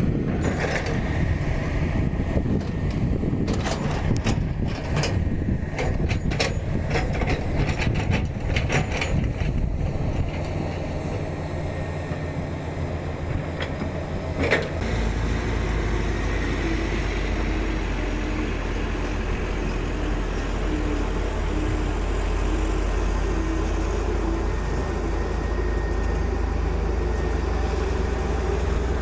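Komatsu GD555 motor grader's diesel engine running steadily under load, with a run of sharp clicks and knocks over the first ten seconds and one louder knock about halfway. After the knock the engine drone is deeper and steadier.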